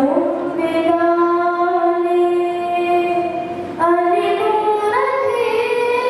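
A girl singing a madhaha, a Maldivian devotional song, solo into a microphone, holding long notes; she breaks off briefly and starts a new phrase about four seconds in.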